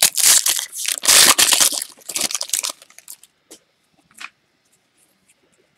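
A 2015 Panini Certified football card pack being torn open by hand: crinkling and tearing of the wrapper for about two and a half seconds, then a few faint clicks and rustles as the cards are handled.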